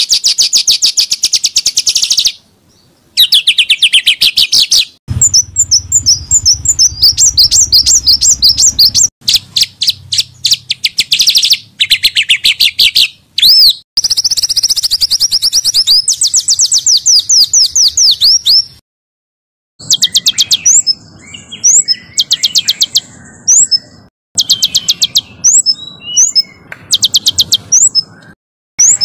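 Small songbirds singing dense, harsh rapid-fire trills: very fast runs of repeated high notes in bursts of a second or two, broken by short pauses, with some phrases of quick sweeping whistles.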